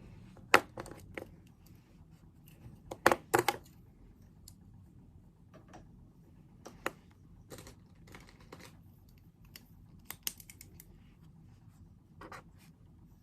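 Scattered clicks and taps of stationery and small objects being handled on a desk, with the sharpest cluster about three seconds in and lighter taps after.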